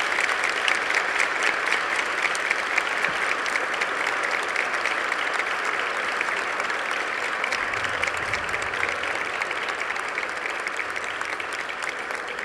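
Audience applauding steadily, a dense patter of many hands clapping that tapers off slightly near the end.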